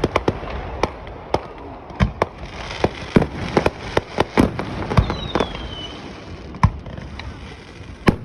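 Fireworks display: a string of irregular bangs and pops from aerial shells going off, with a stretch of crackling a few seconds in and a short falling whistle about five seconds in.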